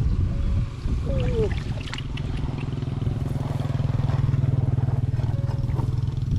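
A small engine running steadily at an even speed, growing louder about two seconds in.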